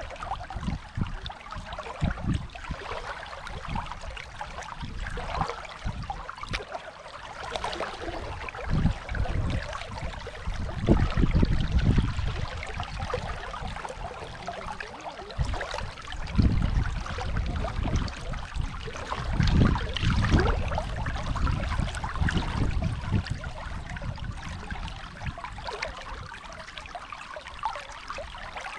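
Dunajec river water rushing: a steady hiss of flowing water, broken by repeated surges of low rumble that are louder than the hiss.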